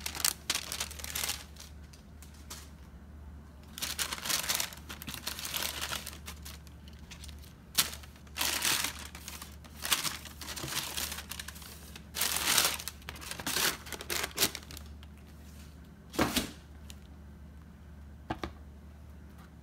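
Tissue paper crinkling and rustling in irregular bursts as it is unfolded and pulled back in a cardboard shoe box.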